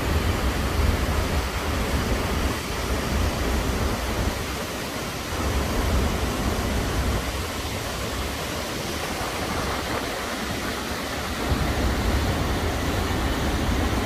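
Takakkaw Falls, a tall waterfall, pouring into its rocky plunge pool: a steady rushing roar of falling and churning water, with a deep low rumble that swells and eases off twice.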